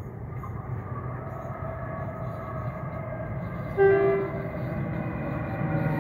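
Class 345 Aventra electric train approaching, its running sound growing louder, and one brief two-tone horn blast, about half a second long, around four seconds in.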